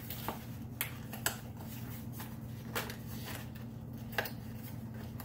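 Items and packaging being handled: a handful of short, light clicks and faint rustling, over a steady low hum.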